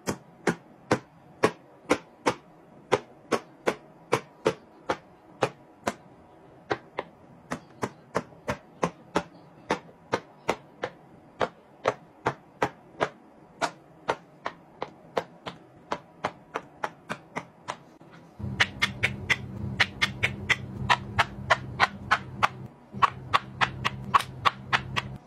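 Bubbles of a large silicone pop-it being pressed one after another, each pop a sharp click, about two a second. A steady low hum comes in about two-thirds of the way through, and the pops sound brighter from then on.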